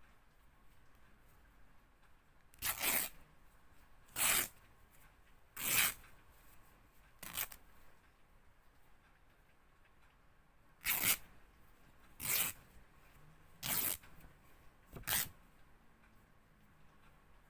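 Fabric being ripped in short tears: four rips about a second and a half apart, a pause of about three seconds, then four more.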